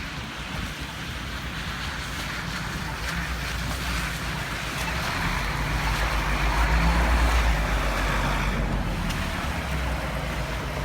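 Blizzard wind blowing and buffeting the microphone, a steady rush with a heavy low rumble that swells to a gust about six to eight seconds in and then eases.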